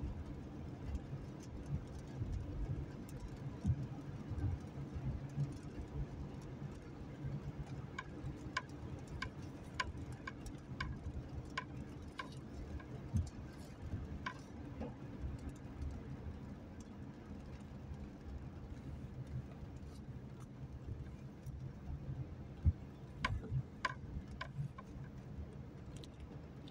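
Steady low rumble of a car driving on a wet road, heard from inside the cabin. Two runs of light ticks come through it, about two a second for several seconds in the middle and a few more near the end.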